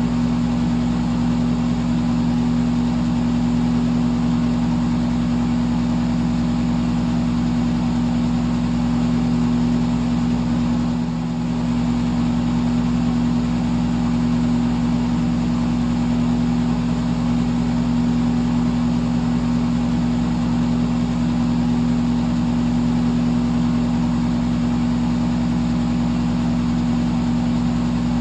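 Electric fan running steadily: an even rush of air over a low motor hum made of several steady tones. The sound dips briefly about eleven seconds in.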